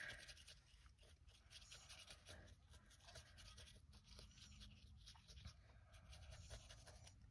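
Very faint strokes of a glitter brush pen's tip dabbing and brushing over paper cardstock, with small soft ticks as the tip touches down.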